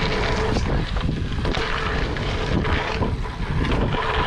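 Wind rushing over the microphone and tyres rolling on gravel as a mountain bike is ridden along a gravel path, with a faint steady hum underneath.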